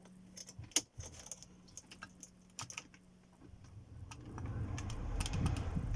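A few sharp clicks of buttons being pressed on a Mercedes W204 climate control panel. From about three and a half seconds in, the cabin blower fan starts and its rush of air rises steadily: the repaired climate module is driving the fan.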